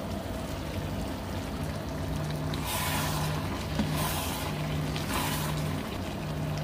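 Pot of potato, sweet potato and lentil samosa filling cooking in a little water, bubbling and hissing, louder in three short spells in the second half, over a faint steady low hum.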